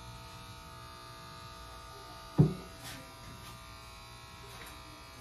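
Corded electric hair clippers running with a steady buzz. A single sharp thump sounds about two and a half seconds in.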